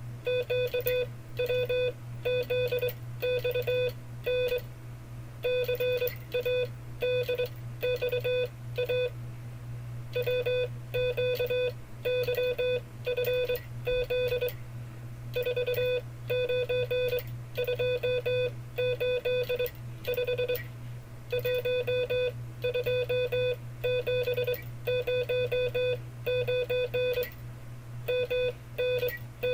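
Morse code sent by hand as five-character cipher groups: a single steady tone keyed on and off in quick dots and dashes, each group followed by a short pause. A steady low hum runs underneath.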